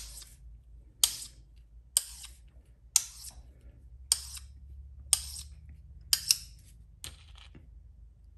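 A small magnet clicking against a steel screwdriver shaft about once a second as it is stroked repeatedly along the shaft to magnetize it, over a faint low steady hum.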